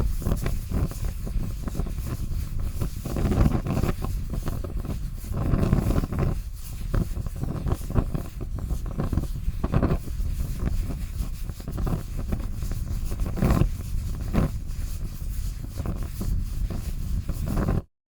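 Fire burning with a steady low roar and scattered sharp crackles and pops, cutting off suddenly near the end.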